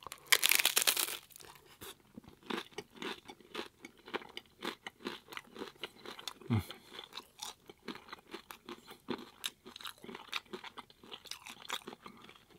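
A loud crunch as teeth bite into a crisp corn taco shell, then steady crunchy chewing of the shell, a couple of crunches a second.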